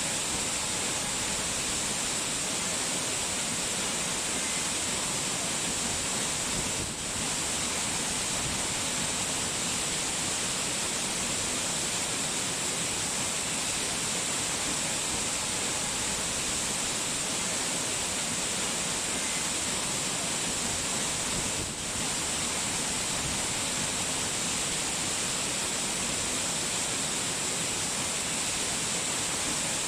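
Steady rushing water, an even hiss with no pauses, dipping briefly twice.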